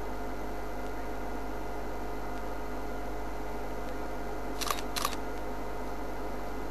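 A steady electrical-sounding hum and hiss, with two brief sharp clicks about half a second apart a little past the middle.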